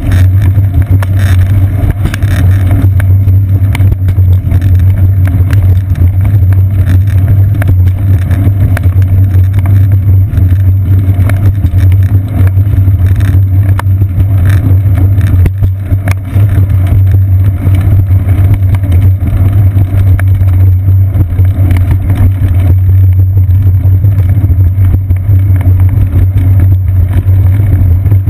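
Loud, steady low rumble of wind and road vibration on a bicycle seat-post-mounted GoPro Hero 2 as the bike rolls along a concrete path.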